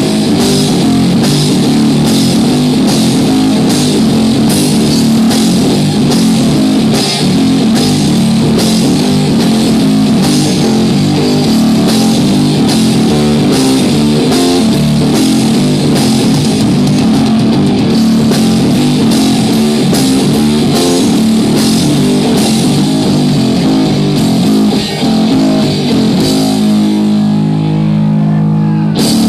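Live rock played by electric guitar and drum kit: loud, driving riffs with steady drum and cymbal hits. Near the end the drumming stops and a held guitar chord rings on.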